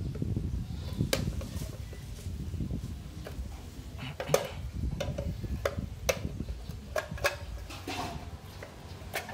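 Small screwdriver prying at the edge of a car engine ECU's metal case, giving a string of sharp, irregular metallic clicks and scrapes over low rubbing and handling noise as the case is shifted about.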